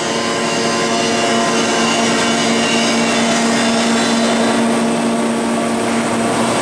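Steady machine hum with a fixed low whine over an even hiss, from running equipment.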